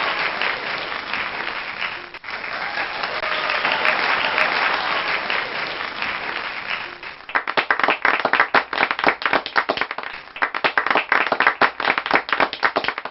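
Crowd applauding in a dense, even wash that dips briefly about two seconds in. From about seven seconds in the applause thins, so that separate hand claps stand out.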